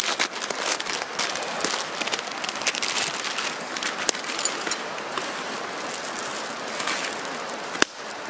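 Wood campfire crackling and hissing beside a pot of water at a boil: a steady hiss dotted with many sharp pops. One louder click comes near the end.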